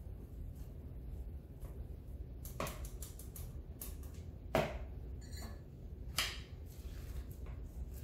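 Wire whisk stirring thick cake batter in a mixing bowl, with a few sharp clinks of the whisk against the bowl, the loudest about halfway through.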